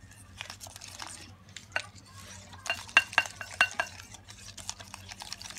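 Silicone-coated wire whisk beating eggs and powdered sugar in a glass bowl: irregular clicks and taps against the glass, with a quicker run of sharper, ringing taps about three seconds in.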